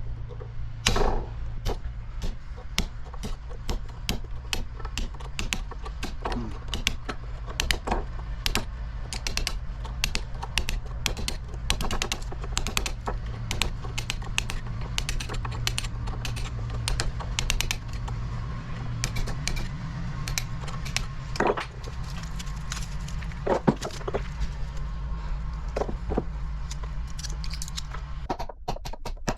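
Copper windings of a small electric motor being trimmed with hand cutters: a run of sharp metallic snips and clicks, a few a second, over a steady low hum.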